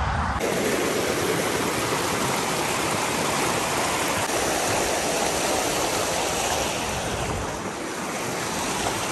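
Rushing mountain stream tumbling over rocks: a steady, full whitewater rush.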